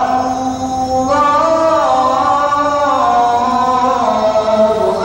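A single man's voice chanting an Islamic call to prayer: one long melodic line of held notes that bend slowly up and down, rising a little about a second in.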